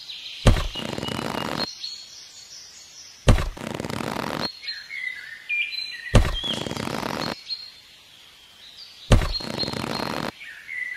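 Toy chilli peppers picked one at a time by hand from a miniature plot: four soft thumps about three seconds apart, each followed by about a second of hiss. Birds chirp in the pauses between them.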